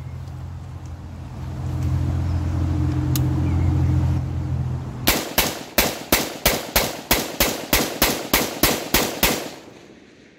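Rapid semi-automatic fire from an Inter Ordnance M215 AR pistol with a 7.5-inch barrel in 5.56 NATO: about sixteen shots, roughly four a second, starting about five seconds in. A steady low hum comes before the shots.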